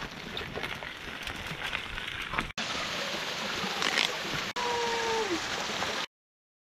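Edited sequence of outdoor sounds: bicycle tyres crunching over a gravel trail with many small clicks, then about a second and a half in, a hard cut to a small waterfall splashing steadily into a creek pool, then running creek water with a short falling whine about two seconds later. The sound cuts out abruptly near the end.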